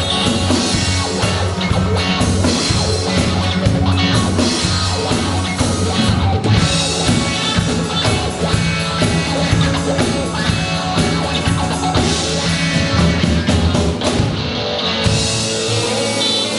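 Rock band music with drum kit, bass and electric guitar playing together. About fifteen seconds in, the drums and low end drop away and mostly guitar is left.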